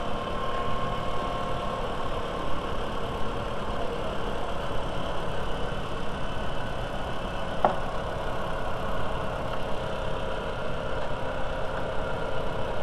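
VW 1.8T turbocharged four-cylinder engine idling steadily, with a faint steady whine over the hum. A single sharp click comes about eight seconds in.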